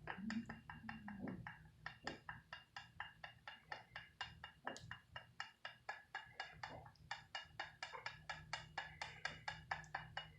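A metal utensil clicking rhythmically against a pot or pan, about four to five light taps a second, as chicken gravy is stirred.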